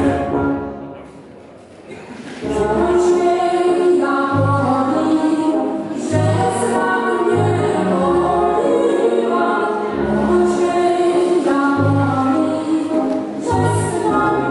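A folk song sung by a group of voices with a low bass accompaniment. The song fades into a short lull about a second in and starts again about two seconds in.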